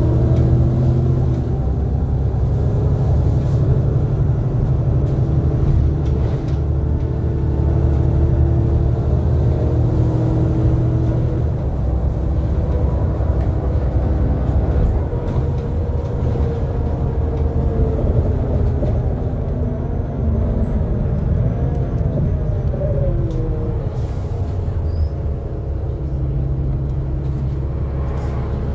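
NefAZ 5299 low-floor city bus heard from inside the cabin while driving: a steady engine and road rumble, with the engine note rising and falling as the bus speeds up and slows down.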